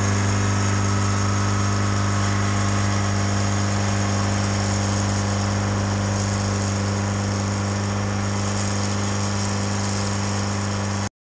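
Diesel engine of a Pettibone Speed Swing hi-rail loader running at a steady speed, a constant low drone that does not rise or fall. It cuts off suddenly near the end.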